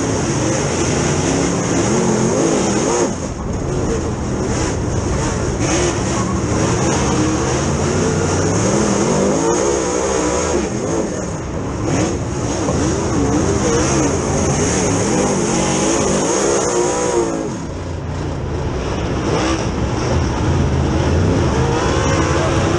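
Dirt Super Late Model race car's V8 engine heard from inside the cockpit, running hard at racing speed, its pitch rising and falling as the driver gets on and off the throttle through the turns. The engine note drops briefly twice, about three seconds in and again near the end, as the driver lifts.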